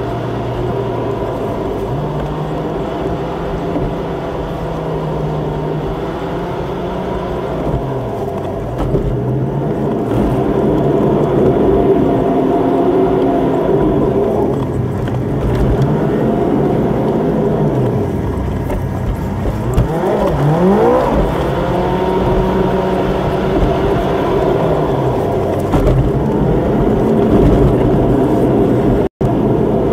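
Car engine and road noise heard from inside the cabin while driving, the engine pitch shifting with speed and gear changes, with a sharp rise and fall in pitch about two-thirds of the way through. The sound cuts out for an instant near the end.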